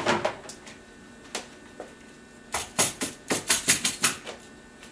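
Light clicks and rattles over about a second and a half, starting about halfway through. A white plastic basket of cleaned clock movement parts is being picked up and handled, and the plastic and the metal parts inside clatter.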